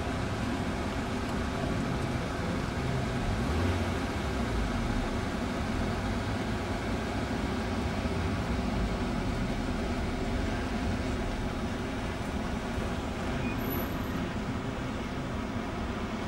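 Car engines running at low speed as several cars roll slowly past, a steady rumble with no sharp revs.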